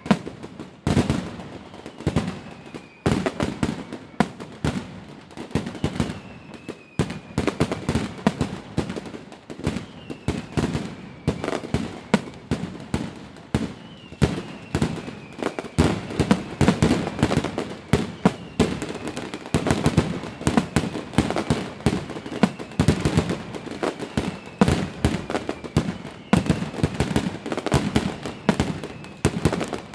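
Fireworks going off in a dense, near-continuous barrage of bangs and crackles, with faint falling whistles every few seconds.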